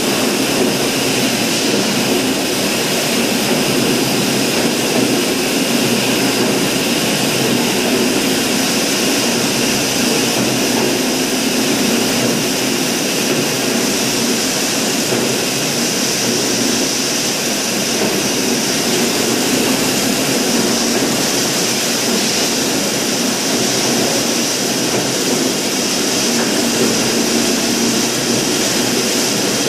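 Steady, loud machinery din of a plastic-drum blow-moulding machine running, with a steady high whine held over it.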